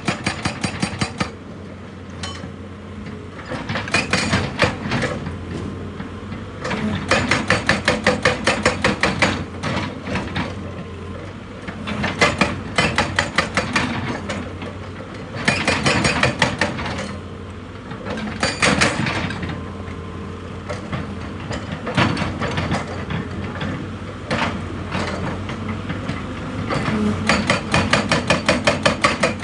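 Excavator-mounted hydraulic rock breaker hammering rock in bursts of rapid, evenly spaced blows, about seven a second, each burst lasting one to three seconds, over the steady hum of the machine's engine.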